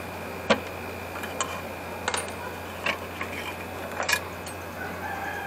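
A handful of sharp metallic clicks and taps as a hex key works the upper blade clamp of a Makita scroll saw and the loosened blade is freed.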